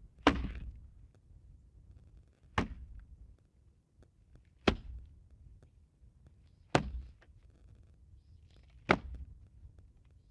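Five sharp thunks, evenly spaced about two seconds apart, each a single knock with a brief tail.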